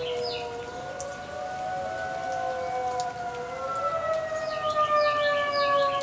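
Several outdoor warning sirens sounding together, each a steady wail whose pitch slowly rises and falls, so that the tones drift across one another. A bird chirps in quick runs of short notes at the start and again near the end.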